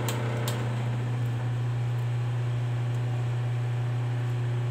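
Small three-phase electric motor running on a single-phase 220 V supply through a capacitor-type phase converter: a steady mains hum with a low whirring haze. Two light clicks sound in the first half second.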